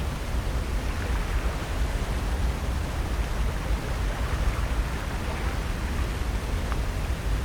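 Steady wash of Pacific Ocean surf and wind, with a low rumble.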